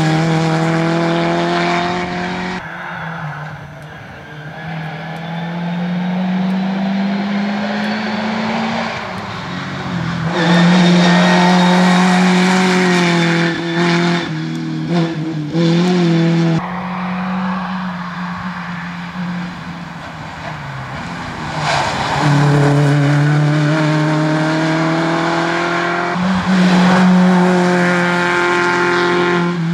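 Rear-engined Škoda 130-type rally saloons driven hard past one after another, their four-cylinder engines revving high, the pitch climbing through each gear and dropping on the lift-off into bends.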